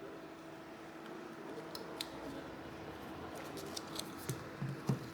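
Light clicks and taps of small hand tools on an opened smartphone as its screen flex cable is worked into place. The clicks come more often in the second half, over a faint steady hum.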